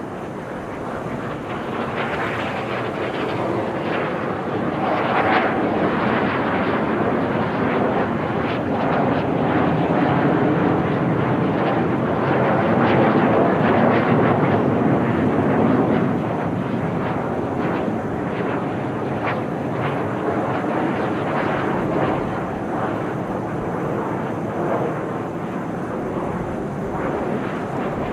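Jet noise from Kawasaki T-4 trainers, each with twin F3 turbofans, flying aerobatics overhead: a steady rushing noise that builds over the first dozen seconds, peaks around the middle and then eases off a little.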